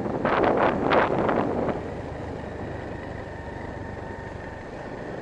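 Motorbike riding along, its engine running under steady wind noise on the microphone. Near the start there is a cluster of several quick loud bursts lasting about a second and a half.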